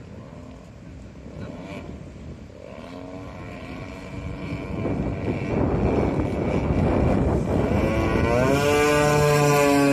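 Twin DLE 35RA two-stroke gasoline engines of a large RC OV-10 model airplane, a droning engine note growing steadily louder as the plane comes closer. Near the end the engine pitch rises and then holds higher.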